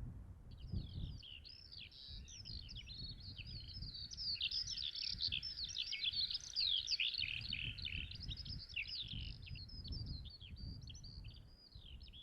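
Birds chattering and twittering, with many quick overlapping calls that begin about half a second in and swell toward the middle, over a low rumble.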